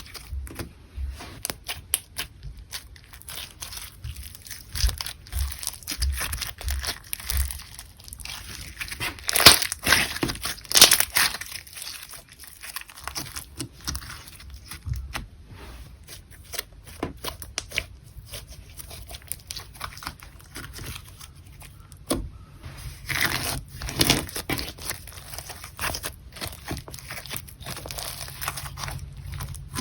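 Clear slime being worked by hand, stretched, pressed and folded, giving a continuous run of small sticky clicks and pops, with louder clusters about nine to eleven seconds in and again around twenty-three to twenty-four seconds.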